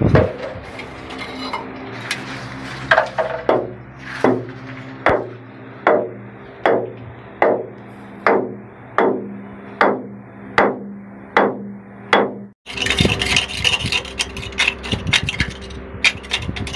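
A hammer striking rock in steady, evenly spaced blows, about one every three-quarters of a second. After a cut near the end, quicker tapping and scraping at the rock.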